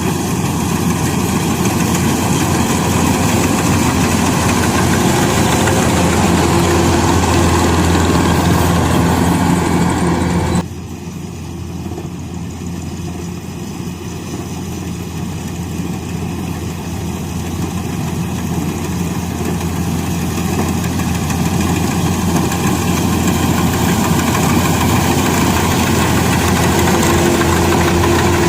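Rice harvester's engine running steadily with a low hum. About ten seconds in, the sound drops suddenly and becomes quieter, then slowly builds back up.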